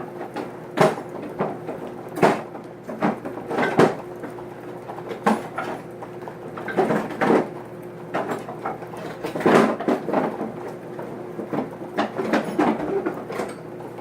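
Thick plastic MCW ration bag being handled and gripped, crackling and crinkling in irregular bursts, over a faint steady hum.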